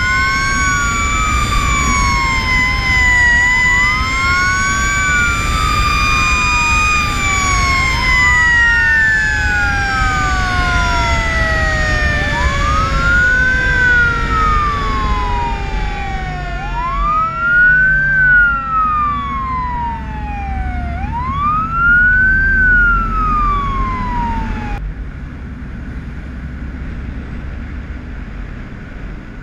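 Fire truck sirens on a truck running to an alarm, over the low rumble of the diesel engine and the road. One siren wails up and down about every four and a half seconds, rising fast and falling more slowly, while a second siren tone slides slowly up and then winds down over many seconds. The sirens cut off about 25 seconds in, leaving the engine and road noise.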